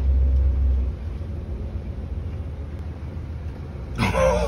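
Boat engine running with a steady low rumble, heavier for about the first second. A man starts talking near the end.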